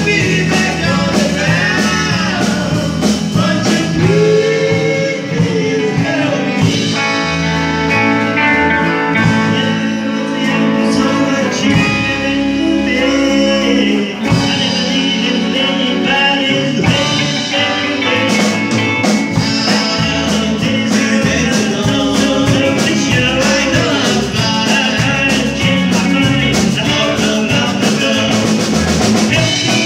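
Live rock band playing a song with a lead vocal: electric guitars, drum kit and keyboard, heard through the room.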